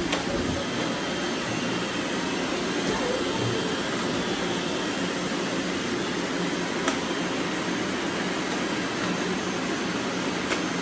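Several robot vacuums running at once, a steady whir of their motors and suction, with a couple of light clicks.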